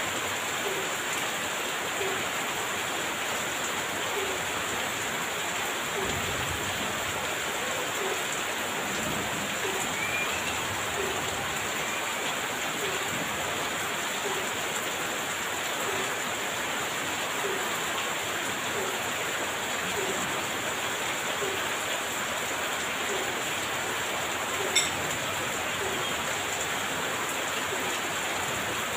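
Heavy rain falling steadily, an even hiss of water. A faint small tap repeats about every two-thirds of a second, and a single sharp tick sounds near the end.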